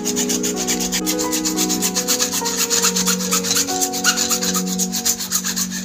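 Hacksaw blade cutting through a plastic water pipe in quick back-and-forth strokes, a steady rasping, with background music underneath.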